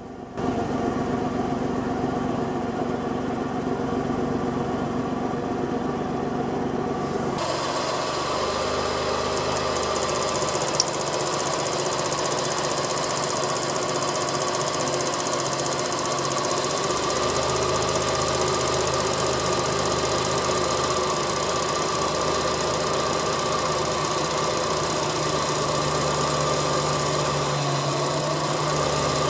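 Suzuki Cappuccino's three-cylinder turbo engine running steadily at idle. The sound jumps up sharply just after the start and turns brighter and hissier about seven seconds in.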